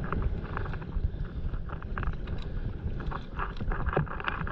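Wind buffeting the microphone with a steady low rumble, over small, irregular splashes and lapping of seawater around paddleboards.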